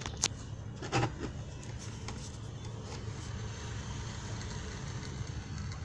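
Candle-heated toy pop-pop boat's steam engine puttering steadily and fast as the boat runs across a tub of water, with a few light knocks in the first second.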